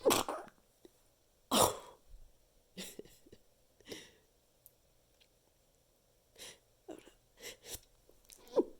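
Two stifled sneezes muffled into a handful of tissues, one right at the start and a louder one about a second and a half later, followed by several shorter, quieter sounds.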